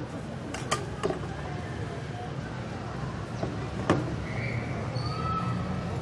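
City square ambience: a steady murmur of people talking, with a few sharp clicks or knocks. The loudest click comes about four seconds in.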